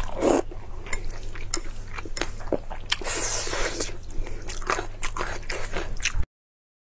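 Close-miked eating sounds: wet chewing and lip smacks on soft wontons in oily sauce, with chopsticks clicking and food squishing as they are worked through the sauce on the plate. The sound cuts off abruptly near the end.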